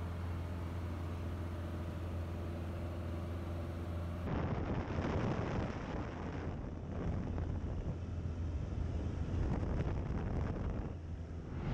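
1939 Piper J-3 Cub's engine and propeller droning steadily in cruise flight. About four seconds in, the sound changes to a rougher rush of wind noise with uneven swells, the engine still running beneath it.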